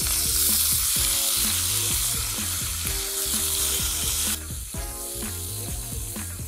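Friarielli (broccoli rabe), freshly washed and wet, sizzling as they go into hot olive oil in a pan and are stirred. The sizzle drops off sharply after about four seconds.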